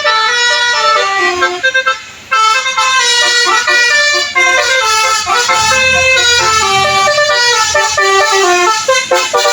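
Telolet basuri horn playing a tune: a fast string of pitched horn notes stepping up and down, with a brief break about two seconds in.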